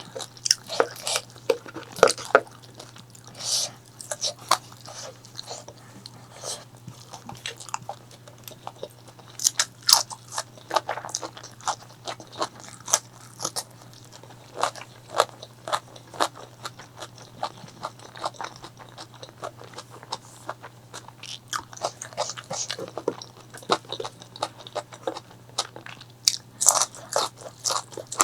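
A person biting and chewing crunchy food, with sharp crunches coming in irregular clusters, over a faint steady low hum.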